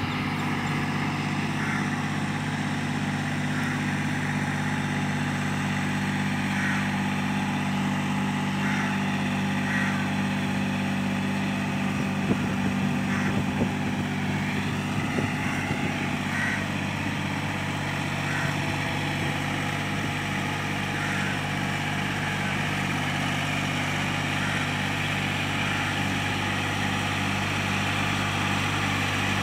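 John Deere 5045D tractor's 45 hp three-cylinder diesel engine running steadily under load as it drives a Shaktiman rotavator through a flooded paddy field.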